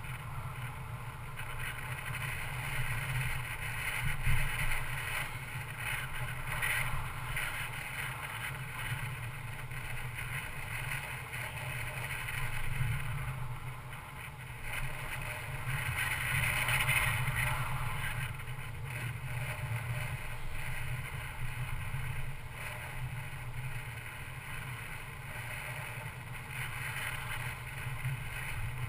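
Steady driving noise from a 2012 Mercedes-Benz C250 Coupe on the move: a low road rumble under a hiss of wind and tyres, swelling louder briefly about four seconds in and again a little past the middle.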